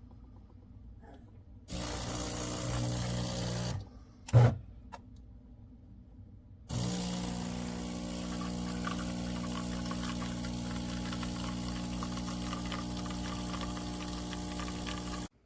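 De'Longhi Magnifica Plus fully automatic espresso machine running: a motor runs for about two seconds, there is one loud clack, then a steady mechanical run with a hum lasts about eight seconds and stops abruptly near the end.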